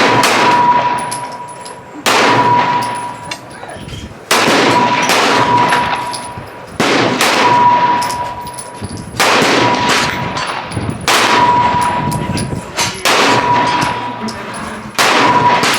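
Gunshots on an outdoor shooting range, about one every two seconds, eight in all. Each is followed by a long echo and a ringing tone.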